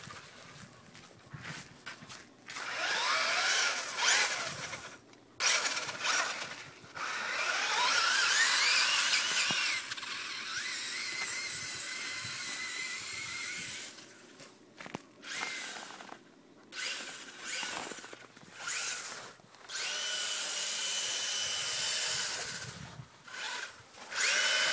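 Electric motor of a Traxxas Stampede RC truck on a 3S LiPo, whining in repeated throttle bursts with short pauses between; the pitch climbs as it speeds up.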